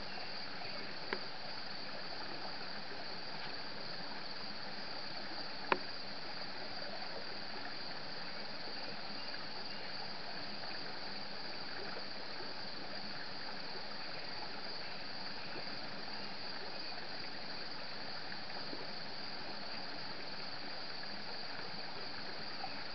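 Steady rushing of a creek, an even noise with a steady high-pitched hum over it, broken by one sharp click about six seconds in.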